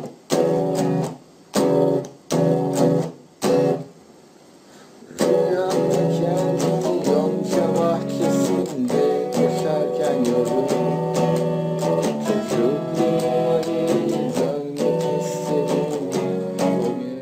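Electric guitar played in short, choppy chord stabs, each cut off sharply, then after a brief pause longer ringing chords played continuously until they fade near the end.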